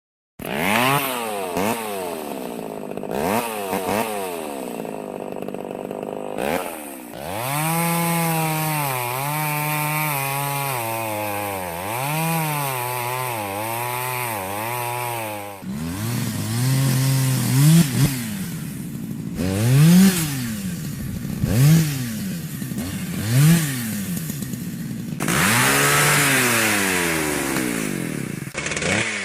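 Petrol chainsaw engine revved again and again, its pitch climbing and falling with each blip of the throttle. A stretch of quick, wavering revs comes in the middle, and a longer loud high-rev run comes near the end.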